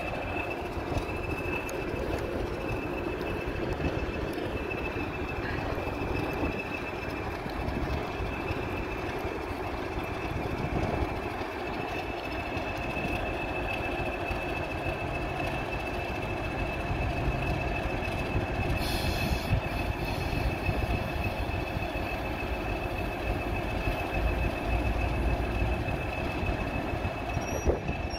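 Class 20 diesel-electric locomotive's engine running, a steady rumble with a high whine held throughout.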